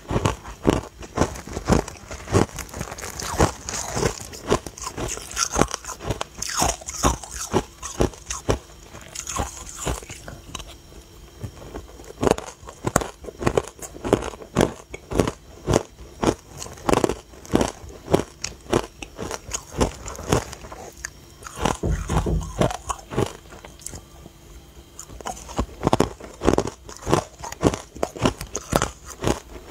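Frozen matcha ice cubes being bitten and chewed: runs of sharp, crackling crunches as the hard ice breaks between the teeth, with a few short lulls between mouthfuls.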